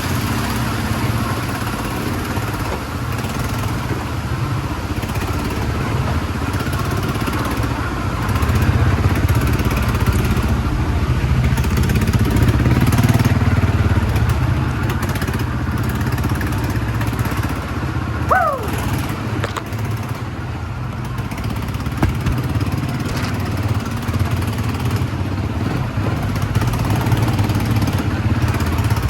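ATV engine running steadily at a fairly loud level. About two-thirds of the way through there is one short falling whistle.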